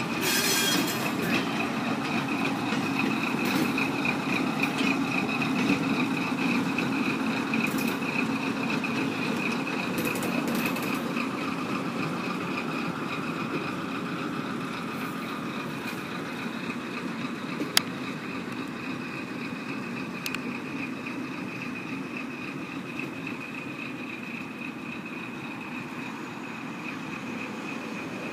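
Train pushed by an RS4-TC diesel locomotive rolling away, its wheels on the rails and engine noise slowly fading, with a steady high whine. A single sharp click sounds about two-thirds of the way through.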